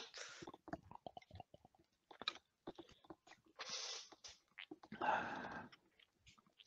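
Faint drinking and swallowing sounds with small mouth clicks, picked up close by a headset microphone, and two short breaths about four and five seconds in.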